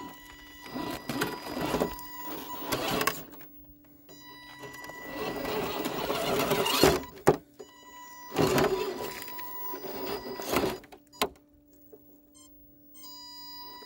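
RC rock crawler's electric motor and geared drivetrain whirring in repeated bursts as the throttle is worked to climb over granite rock. A faint steady high whine carries on between the bursts.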